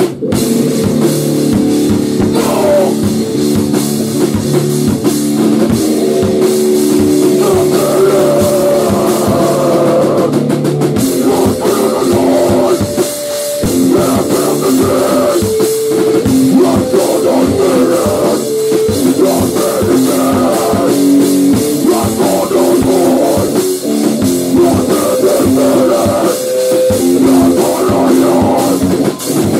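Rock band playing loudly with guitar and drum kit, an instrumental passage with no singing.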